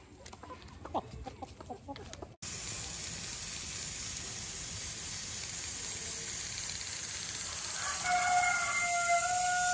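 A steady hiss begins abruptly about two and a half seconds in, after faint clicks; near the end a rooster crows once over it.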